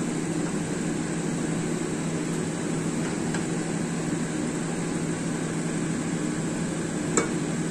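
A steady low machine hum, with one sharp tap near the end from the spatula striking the steel pot.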